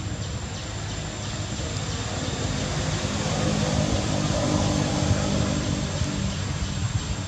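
Low engine hum of a passing motor vehicle, swelling to its loudest a little past halfway and then fading, over a steady high-pitched whine.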